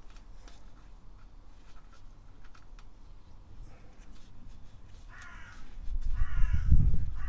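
Faint, scattered small metallic clicks of hand work on a bolt beside the turbo and exhaust manifold. From about five seconds in, a loud low rumble sets in, along with three short harsh calls about a second apart.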